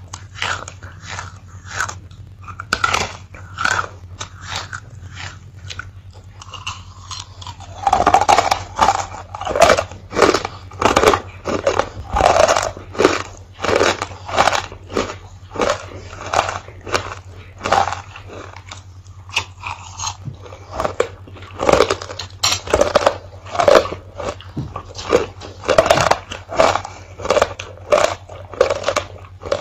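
Close-up crunching and chewing of hard Black Halls lozenges in the mouth: sharp, crisp crunches about once or twice a second, getting louder from about eight seconds in.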